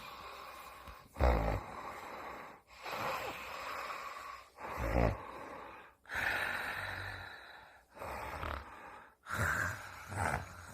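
Pretend snoring by a grandmother and a baby of about six months copying her: a run of rasping, snore-like breaths, each one to two seconds long, with two shorter, louder, deeper ones about a second in and about five seconds in.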